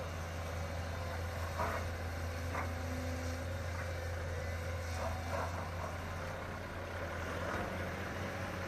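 Hydraulic excavator's diesel engine running steadily as it digs sand, with a few faint knocks.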